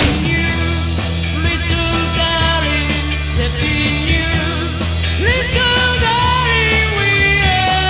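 Rock song playing: a steady bass line under a lead melody that bends and slides in pitch.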